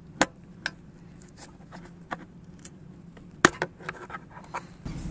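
Scattered light clicks and taps of a tool and hands working the plastic retaining clip of a diesel engine's timing belt top cover, with one sharper knock about three and a half seconds in.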